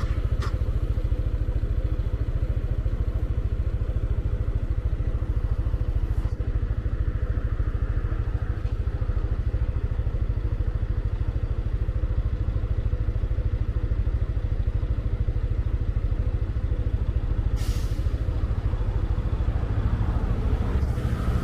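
Motorcycle engine idling steadily, a low, even, pulsing run with no revving.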